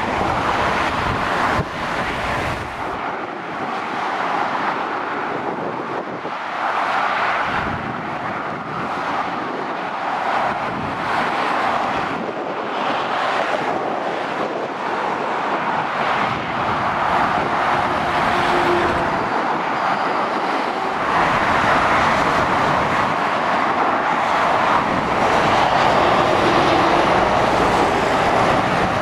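Motorway traffic passing: a steady rush of tyre and engine noise from lorries and cars, swelling and fading every few seconds as each heavy truck goes by.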